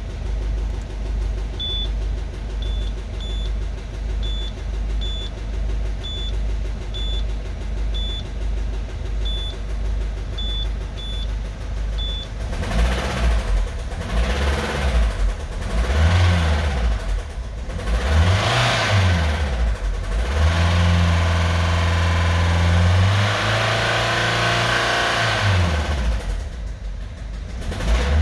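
Citroen C4 Grand Picasso's 1.6 HDi four-cylinder turbodiesel idling, then revved and let fall back several times, once held up for a few seconds. It has a bottom-end knock. A short electronic beep repeats about once a second during the idle, stopping about twelve seconds in.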